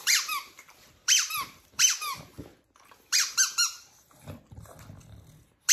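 Rubber chicken squeaky toy squeezed by hand, giving short high squeaks that fall in pitch, in about four quick clusters roughly a second apart.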